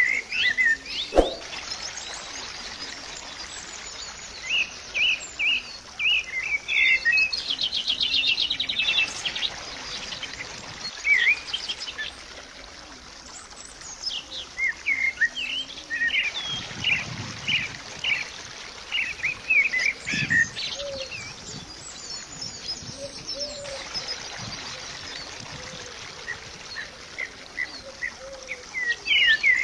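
Birds chirping and whistling in short repeated calls over a faint steady hiss, with a rapid trill about eight seconds in. A single sharp click sounds about a second in.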